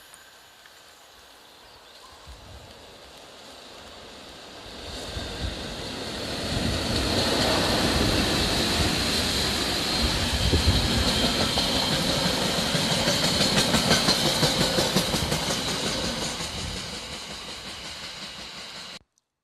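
Freight train passing at speed: rumble and wheel clatter build from about five seconds in, stay loud for several seconds, then fade, and the sound cuts off abruptly near the end.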